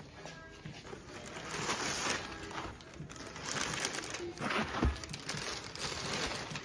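Plastic grocery packaging rustling and crinkling in irregular swells as items are handled, with a soft thud about five seconds in.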